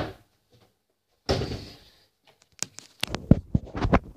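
A kitchen cupboard door shuts with a dull thud about a second in, then a quick irregular run of sharp clicks and knocks from the phone being picked up and handled.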